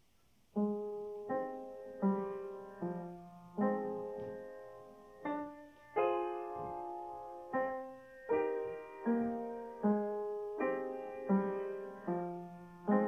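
Slow solo piano music: chords and single notes struck at an even pace, each ringing and fading before the next, beginning about half a second in.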